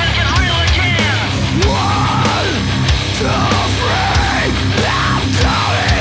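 Loud hard-rock music with a heavy, driving sound, laid over the ride as a soundtrack.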